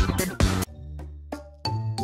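Electronic background music: a busy beat with drum hits breaks off about two-thirds of a second in, leaving a held bass note and a few sparse hits, and a lighter section with bell-like tones starts near the end.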